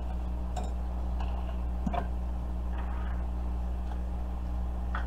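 A few faint, light clinks of a wire whisk against a glass mixing bowl, over a steady low hum.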